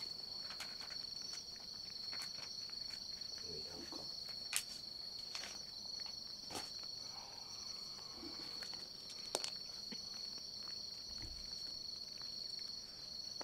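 Crickets chirring in a steady, even high pitch, with a few sharp light clicks scattered through.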